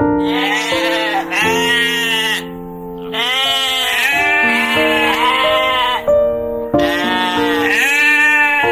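Sheep bleating repeatedly, a series of long, wavering bleats with short pauses between them, over background keyboard music.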